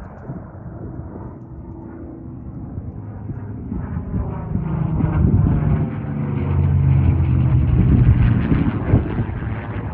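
P-51 Mustang's V-12 piston engine as the fighter flies by, growing steadily louder to its loudest about eight seconds in, then easing slightly.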